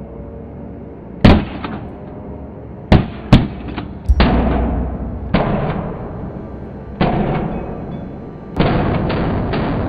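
Dramatic film-score music built on heavy percussive hits: about seven hard bangs, each ringing out, some with a deep boom. Near the end it swells into a steady loud passage.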